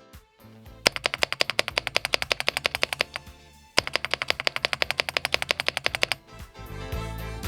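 Mechanical keyboard keys clicking in very rapid, even strokes, about a dozen a second, in two runs of about two seconds each with a short gap between. Background music plays underneath.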